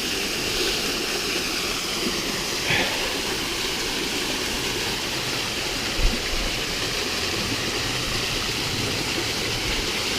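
A small waterfall and its stream, water falling and rushing steadily, with the flow lower than usual. One brief low bump about six seconds in.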